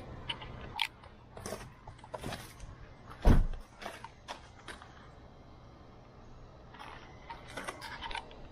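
Handling noise as a roof rail is moved about over a car's roof: scattered clicks and light knocks, with one heavy thump about three seconds in and a cluster of small clicks near the end.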